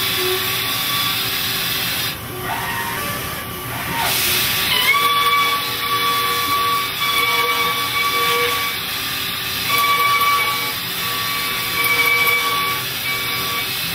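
Mazak Integrex i-100 Bartac-S multi-task machine shoulder milling a 50 mm bar: a steady hiss of coolant spray and cutting, with a high whine from the milling cutter. The whine rises in pitch about five seconds in, then holds on a steady tone that comes and goes for the rest of the cut.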